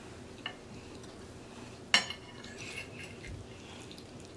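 Metal fork clinking and scraping on a white china dinner plate. There is one sharp clink about two seconds in, with fainter taps and scrapes around it.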